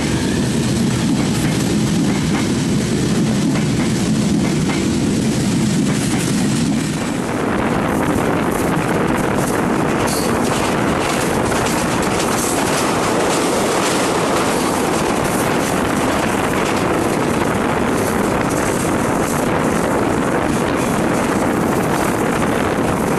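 Running noise of a passenger train heard from an open coach window: wheels on the rails and rushing air, steady and loud. For the first seven seconds or so the noise is deep and heavy, with the train on the next track passing alongside; then it opens into a brighter rush with faint rail clicks.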